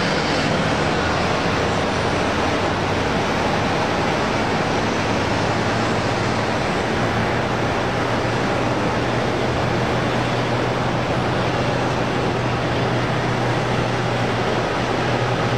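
Twin-engine jet airliner's engines at takeoff power: a steady, even rushing noise with a low hum underneath.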